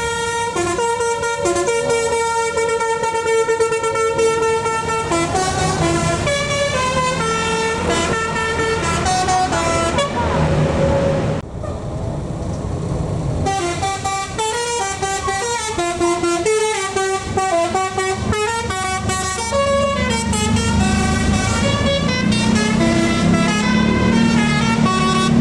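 A tour bus's basuri telolet horn playing a tune of stepped, flute-like notes over the running diesel engine. The tune breaks off for a couple of seconds about eleven seconds in, leaving only the engine, and the engine is louder near the end.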